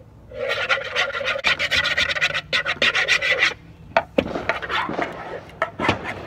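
A spoon scraping fast around a plastic mixing bowl as slime ingredients are stirred, a quick run of rasping strokes. The strokes stop about three and a half seconds in, then resume more sparsely and unevenly.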